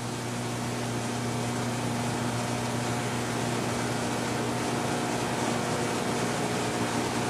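A steady low electrical hum over an even hiss, unchanging throughout, with no separate weld bursts or clicks.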